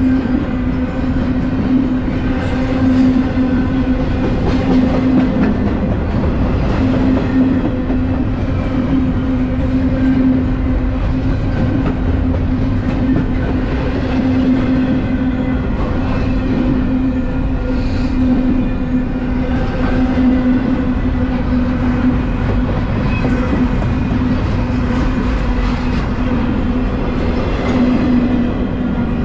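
Double-stack intermodal well cars rolling past at about 15 mph: a continuous rumble and rattle of steel wheels on the rails, with a steady hum running under it.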